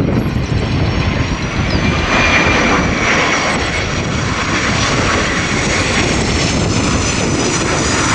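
Airplane engines running, a steady rush with a faint high whine, over wind buffeting the microphone.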